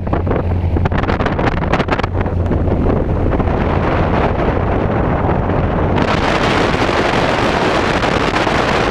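Single-engine light aircraft's propeller engine idling on the ground, with knocks and clatter of people climbing aboard in the first couple of seconds. About six seconds in, a loud rush of propeller wash on the microphone suddenly joins the engine and stays.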